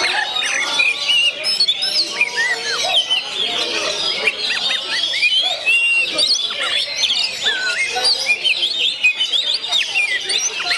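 Many songbirds singing at once: a dense, unbroken tangle of overlapping whistles, chirps and trills.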